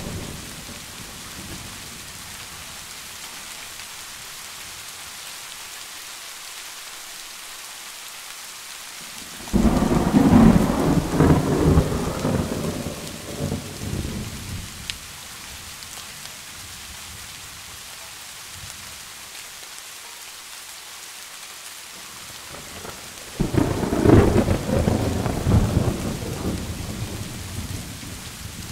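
Steady rain with two rolls of thunder. The first breaks suddenly about ten seconds in and the second about fourteen seconds later, each rumbling for several seconds before fading back to the rain.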